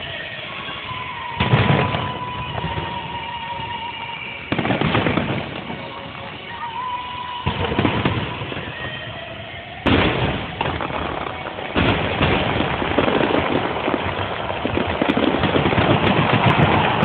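Fireworks finale: five heavy booms about every two to three seconds, then a denser, steadily louder barrage of bursts in the last few seconds.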